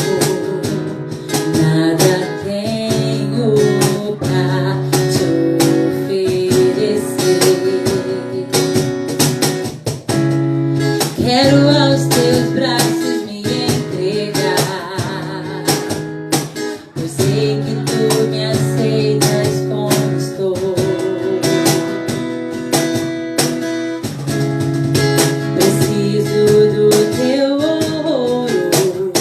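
Acoustic guitar strumming chords of a slow worship song, with a voice singing a melody over it.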